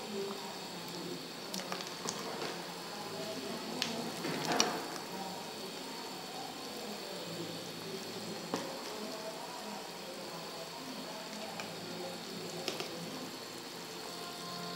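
Duck curry boiling hard in a metal pot: a steady bubbling hiss, with a few sharp knocks of a metal ladle against the pot, one around four seconds in and another near eight and a half seconds.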